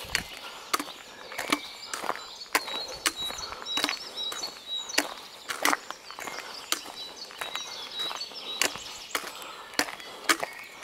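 Footsteps of a walker on a hard path at a steady pace, about two sharp taps a second.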